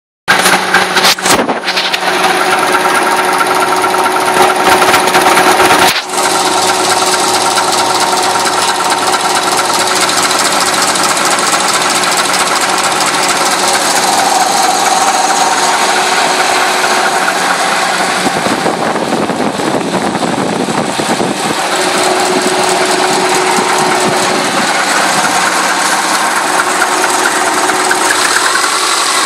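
Subaru Legacy's warmed-up boxer engine idling steadily with a knock (стук), which the owner presumes comes from a faulty idle air control valve.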